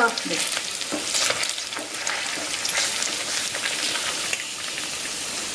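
Battered chicken pieces sizzling and crackling in hot oil, partly fried. A slotted spoon stirs and scrapes in the pan as it lifts them out, giving a few light clicks.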